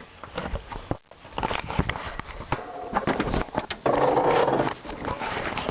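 Pickup truck's hood being released and lifted: a run of clicks and knocks, with a louder noisy burst of under a second about four seconds in.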